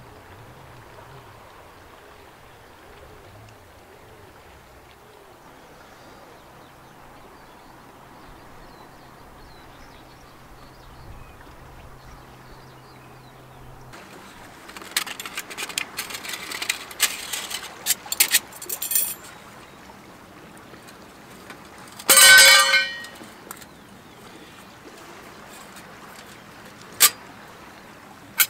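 Thin steel plates of a folding firebox stove clinking and rattling as they are slotted together on rock, starting about halfway through. About two-thirds of the way through there is one loud, ringing metallic clatter, and a single click near the end. Before that there is only quiet, steady outdoor background.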